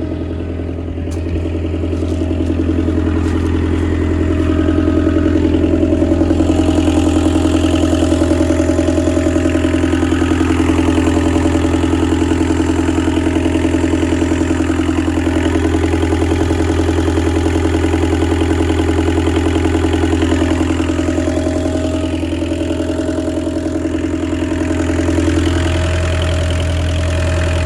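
Bobcat 743 skid steer's diesel engine running steadily, swelling in level a few seconds in and easing briefly near the end.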